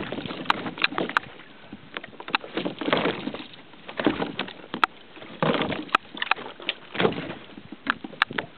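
Water splashing beside a fishing kayak while a hooked wahoo thrashes alongside, with irregular sharp knocks and rattles of gear against the hull.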